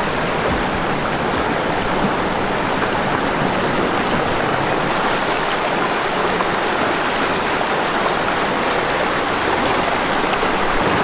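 Mountain torrent rushing over rocks, a steady rush of water.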